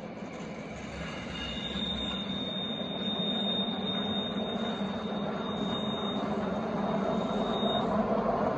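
Rhaetian Railway Ge 4/4 III electric locomotive and passenger coaches passing, the rumble growing louder as the train comes closer. A steady high wheel squeal sets in about a second in and stops shortly before the end, from the wheels in the viaduct's tight curve.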